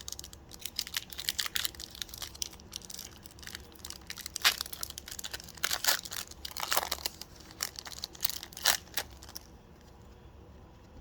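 Foil wrapper of a Pokémon card booster pack being crinkled and torn open by hand: irregular crackling and ripping, loudest in a few sharp tears in the middle, dying down to quiet near the end.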